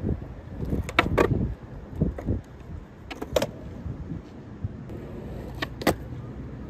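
Skateboard wheels rolling over rough asphalt with a steady low rumble, broken by a few sharp knocks of the board at about one, three and a half, and six seconds in.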